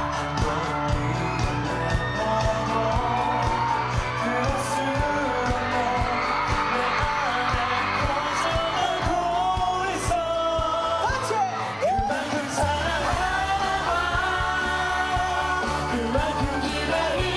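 Live pop band playing with a male lead voice singing into a microphone over a steady drum beat. The drums and bass drop out briefly about twelve seconds in, then the band comes back in.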